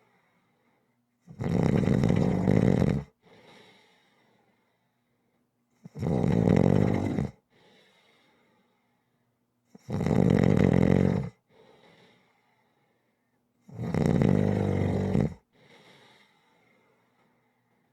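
Rhythmic snoring: four loud rattling snores on the breath in, about four seconds apart and each about a second and a half long, each followed by a faint breath out.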